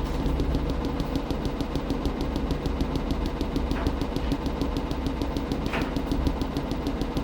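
Washing machine running: a steady mechanical hum with a fast, even ticking, and two short swishes partway through.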